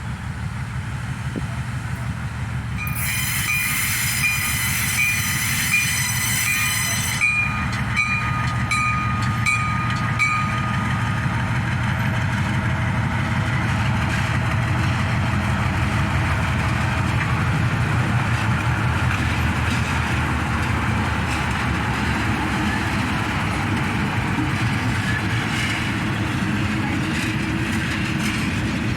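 Freight train passing close by: GE U20C diesel-electric locomotives running and loaded hopper wagons rumbling over the rails, the rumble building over the first few seconds and staying steady. From about three seconds in to about ten seconds in a loud, high warning signal sounds, pulsing about twice a second.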